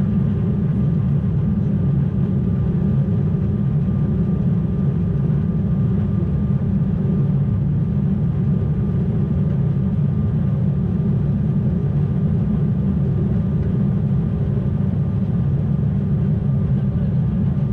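Steady cabin drone of an Embraer E190/195 airliner's twin GE CF34 turbofans and airflow, heard from a seat behind the wing. The engines are at climb power just after takeoff. The drone is a deep rumble with a faint steady high whine above it.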